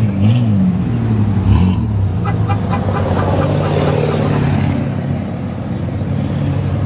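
Off-road race truck engine running loud, its pitch rising and falling in the first couple of seconds as it is revved, then holding steady as the truck moves slowly past.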